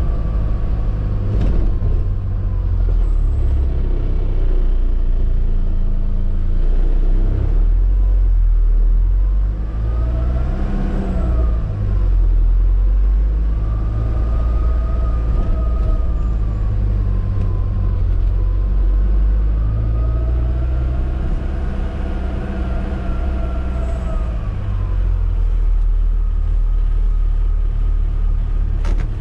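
Classic Hymer motorhome's engine and road rumble heard from inside the cab while driving. The engine note rises and falls several times as it speeds up and slows down.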